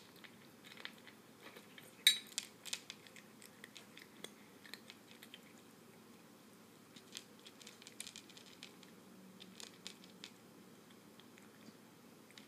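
A cat quietly crunching dry kibble: irregular crisp crunches and clicks, with one loud, sharp click about two seconds in.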